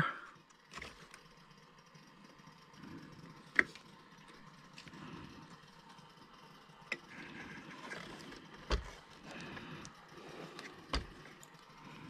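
Hands handling joystick wires and small plastic plugs on a radio transmitter's open circuit board: soft rustling broken by four sharp clicks and taps spread through.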